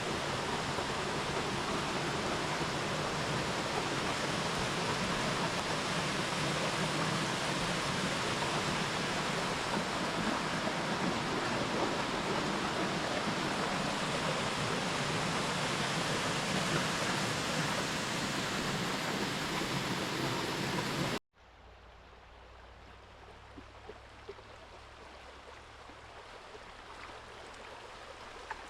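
Small waterfall on a stream, its water rushing steadily. About three-quarters of the way through, the sound cuts off abruptly to a much quieter background with a few faint ticks.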